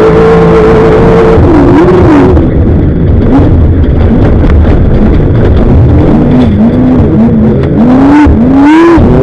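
Class 1 desert race car's engine at full throttle, then backing off about a second and a half in. Toward the end it revs in a series of quick rises and falls as the throttle is worked on and off.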